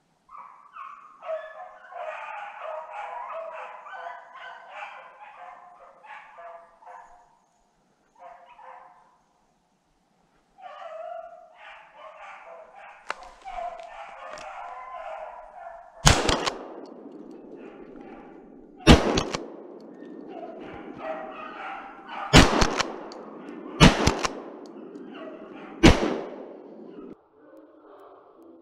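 Hunting dogs baying in chorus on a snowshoe hare's track, then five gunshots fired over about ten seconds near the end while the dogs keep baying between them.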